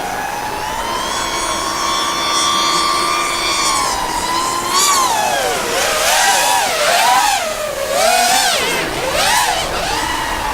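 FPV racing quadcopter's brushless motors whining as it flies a race course. The pitch holds fairly steady at first, then swoops up and down over and over from about halfway through as the throttle is worked hard.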